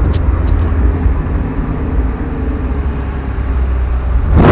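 Mazda Miata driving with the top down: steady low engine and road rumble. Near the end, loud wind buffeting on the microphone.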